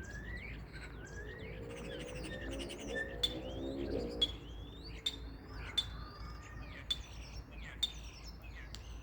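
Common starling singing: a rambling jumble of whistles and sliding notes mixed with sharp clicks, with a low, buzzy rising passage about two to four seconds in.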